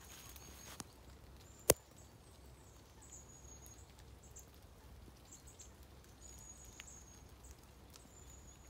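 High, thin bird calls, short notes repeating every second or so, over quiet rural background. A single sharp click comes about two seconds in.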